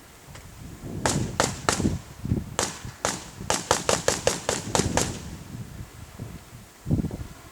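Outdoor sharp bangs: five spaced cracks, then a quick string of about nine at roughly six a second, then a single low thump near the end.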